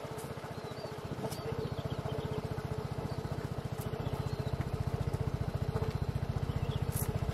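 Low, rapid, even throbbing of a running motor, with a steady hum above it, a few faint bird chirps and occasional light clicks.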